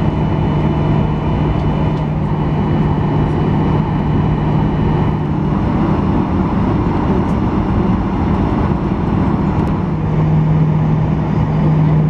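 Cabin noise of a Boeing 737-900ER taxiing, its CFM56 engines at low power: a steady rumble and hiss with a low drone that eases off in the middle and swells back strongly near the end.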